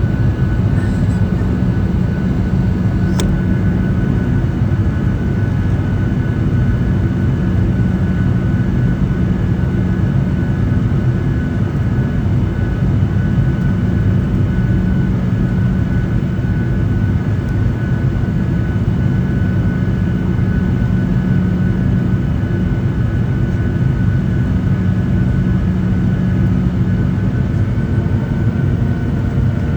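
Cabin noise inside a Boeing 737-800 on final approach: the steady rumble of its CFM56 jet engines and airflow, with a thin steady whine above it. A brief click sounds about three seconds in.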